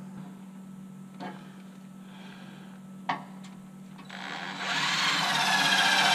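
Cordless drill running from about four seconds in, its motor whine rising and wavering in pitch as it works. Before that there are only two faint clicks.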